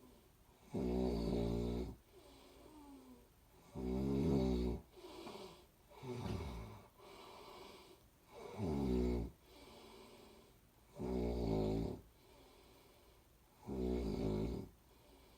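A person snoring steadily: six loud, rattling snores about every two and a half seconds, each followed by a softer breath out.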